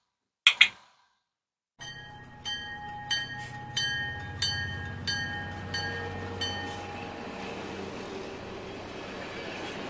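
Train sound: a locomotive bell ringing over a low engine rumble, the bell striking about one and a half times a second. It starts after a second of silence, and the bell stops about seven seconds in while the rumble runs on.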